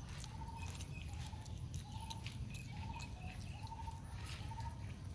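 An animal calling with a short, steady-pitched note repeated about once a second, over a steady low rumble and a few faint clicks.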